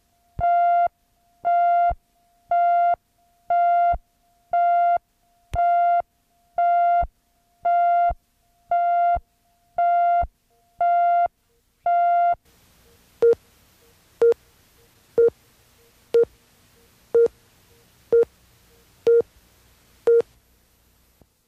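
Videotape leader tones: a pitched beep, about half a second on and half a second off, repeating about once a second. About twelve seconds in it gives way to a faint hiss with eight short, lower-pitched blips a second apart, the countdown to the programme's start.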